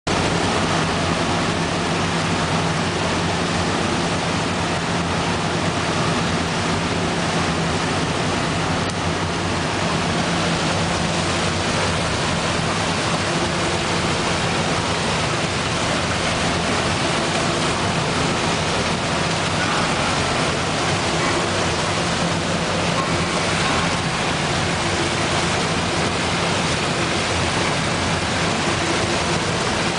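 Industrial machinery running steadily: a constant low hum under an even rushing noise that does not change.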